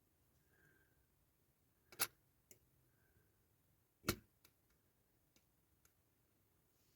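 Near silence broken by two sharp clicks about two seconds apart, followed by a few faint ticks: small diecast toy parts being handled and set down during assembly.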